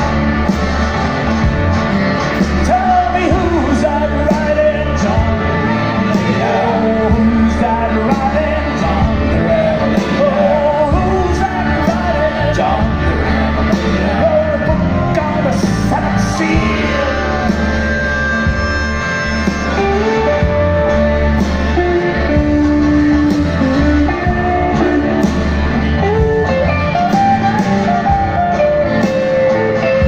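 Live blues-rock band playing: a woman singing over acoustic guitar, keyboard, bass and drums.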